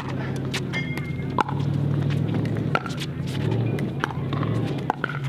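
Pickleball rally: hard paddles striking a plastic pickleball, sharp pops about every second and a half, over a steady low hum.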